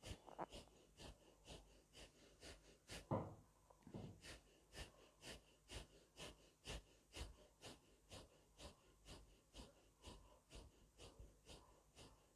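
Forceful, rhythmic breathing through the nose of zikr-e-khafi, about two breaths a second, with a stronger breath about three seconds in: the silent 'Allah Hu' breath-zikr being done on the first latifa, the qalb.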